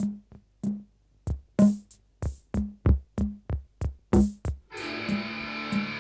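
Music: a song's intro opening on a solo drum beat of kick, snare and hi-hat, with sustained guitar chords coming in about five seconds in.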